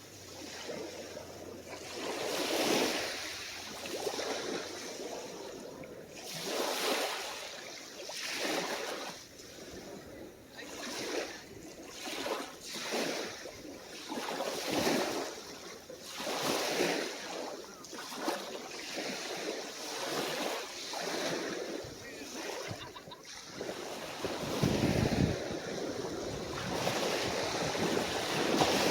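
Small saltwater waves lapping and washing onto the beach, one swell of surf after another every second or two. Wind buffets the microphone in a low rumble near the end.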